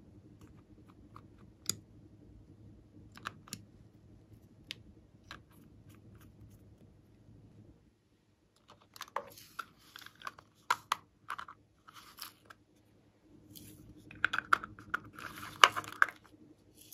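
Small plastic cosmetic containers being handled and opened: sparse single clicks and taps at first, then after a short pause a busier run of clicks and crackling, loudest near the end.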